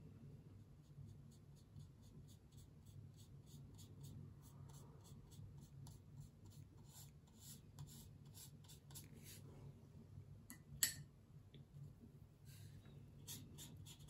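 Faint, repeated short strokes of a watercolour brush on textured watercolour paper as a wash is laid and spread, with one sharp click about eleven seconds in. A steady low hum lies underneath.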